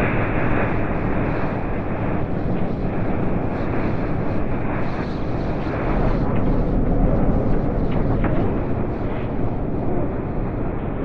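Blizzard wind storm: a loud, steady low roar of gusting wind that swells slightly about midway through.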